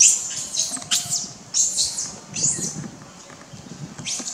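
Baby long-tailed macaque screeching in distress, a run of about six short, high-pitched screams, the loudest at the start: the tantrum of a hungry infant being refused by its mother.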